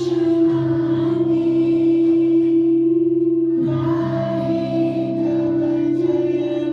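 A group of voices singing together with musical accompaniment, over a steady held note.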